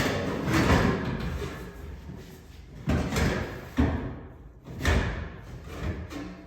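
Several clunks and knocks with scraping between them, the sharpest a little before the four-second mark, from parts of an electric cabinet unit heater being handled during a blower motor replacement.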